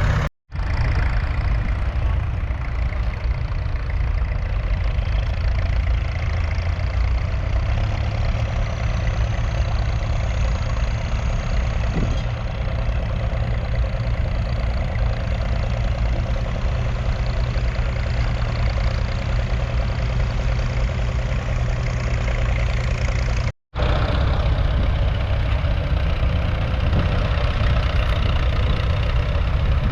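A 1981 Leyland 802 tractor's 3.8-litre four-cylinder diesel engine running steadily, with a deep low drone. The sound cuts out completely twice for a split second, once right at the start and once near the end.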